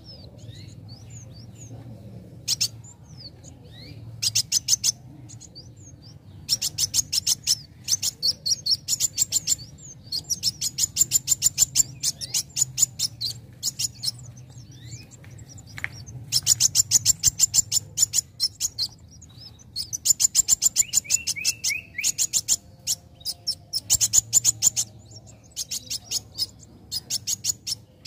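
Young male copper-throated sunbird (kolibri wulung, 'kowul') singing vigorously: long runs of rapid, sharp, high chip notes, each run lasting a few seconds, with short pauses between them.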